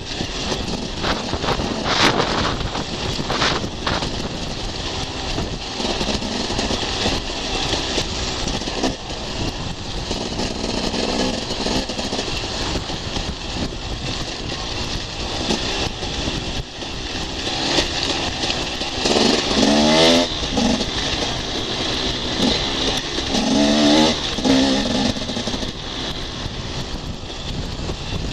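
Enduro motorcycle engine running as the bike rides over a rough dirt track. The revs rise and fall twice in the second half, with a few sharp knocks early on.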